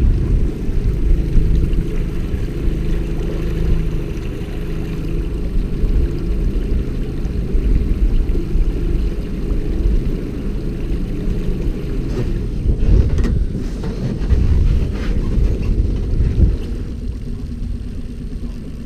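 Small outboard motor running steadily at low trolling speed, with wind buffeting the microphone. The engine sound drops a little near the end.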